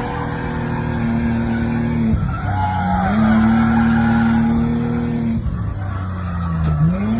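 Drift car engine held at high revs with tyres squealing as the car slides; the revs drop and climb back twice, about two and a half seconds in and near the end.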